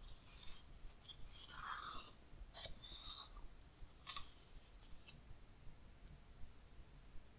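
A page of a large-format hardcover book being turned: a faint papery swish about a second and a half in, then a few light clicks and taps of the stiff glossy page settling.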